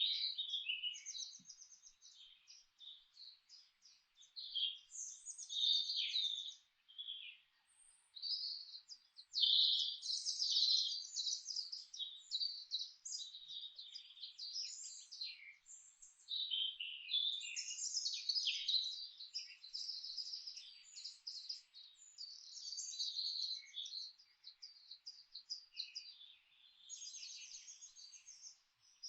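Several songbirds singing at once, a chorus of high chirps, rapid trills and short repeated notes overlapping one another, with brief lulls between phrases.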